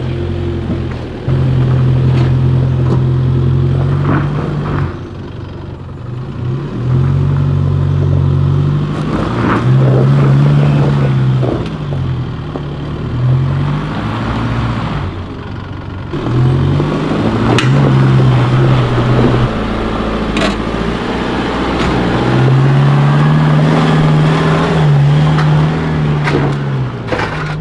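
4WD engine revving up and down again and again as the vehicle struggles up a rutted, slippery clay hill climb, its note rising and falling with each push. Short knocks and clunks come through now and then.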